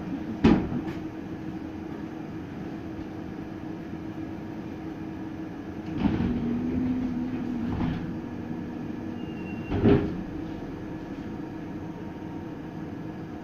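Inside a TW6000 light-rail car standing at a stop: a steady hum, broken by a sharp knock about half a second in, a thump about six seconds in followed by a steady tone for about two seconds, and another knock about ten seconds in.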